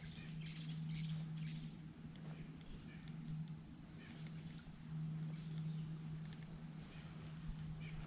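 Steady insect chorus: a continuous high-pitched trill that holds one pitch without a break, with a faint low hum underneath that comes and goes.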